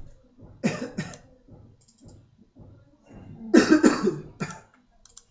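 A person coughing close to the microphone: two quick coughs about a second in, then a louder fit of three or four coughs about three and a half seconds in.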